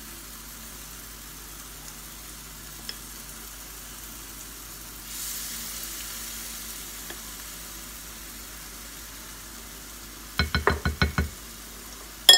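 Spoonfuls of banana fritter (maruya) batter sizzling in hot cooking oil in a frying pan. The sizzle grows louder about five seconds in as another spoonful of batter goes into the oil. Near the end comes a quick run of about six knocks, the spoon against the glass batter bowl.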